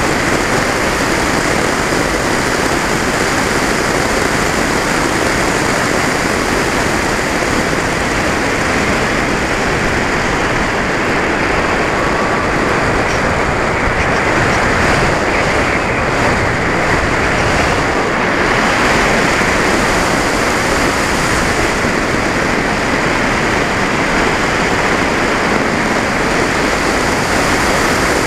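Steady rush of wind over an onboard camera's microphone on a flying FPV model aircraft, with the drone of its motor and propeller underneath.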